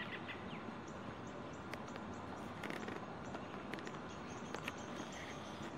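Small birds chirping in short, high notes over steady outdoor hiss, with a brief trill at the start and a few soft clicks and rustles.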